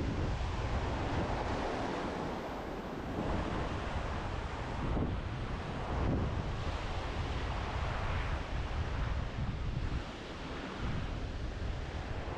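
Strong wind buffeting the microphone with a low rumble that swells and drops, over the steady wash of breaking surf.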